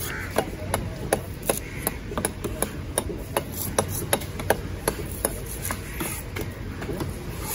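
Heavy knife scraping scales off a large fish on a wooden chopping block, in quick regular strokes about three a second.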